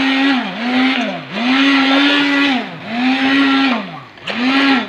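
Hand-held immersion (stick) blender motor running in pulses, its whine dropping in pitch and swelling back about every second as it purees set chocolate flan pudding in a glass bowl.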